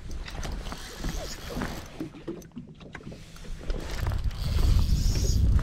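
Wind rumbling on the microphone and small waves lapping against a bass boat's hull, easing off in the middle and building again near the end, with a few faint light clicks.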